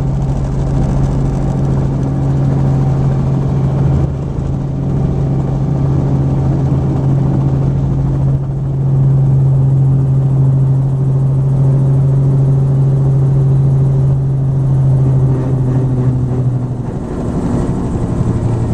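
Helicopter engine and rotor running close by: a loud, steady low hum with overtones. It wavers a little near the end.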